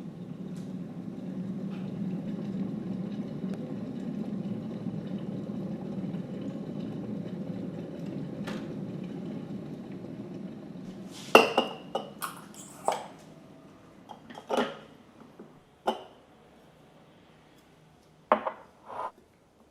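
A steady low rushing noise that swells and fades over about ten seconds, then kitchenware clinking and knocking, a dozen or so separate sharp knocks, some with a brief ring.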